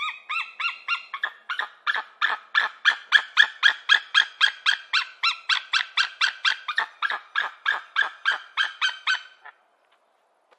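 White-tailed eagle calling: a long, rapid run of short yelping notes, about four a second, that stops about nine and a half seconds in.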